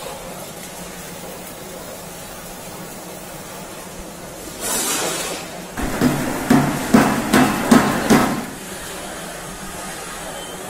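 Steady hum of popcorn production-line machinery in a factory hall. About four and a half seconds in there is a short hiss, then a quick run of about seven loud knocks over two and a half seconds.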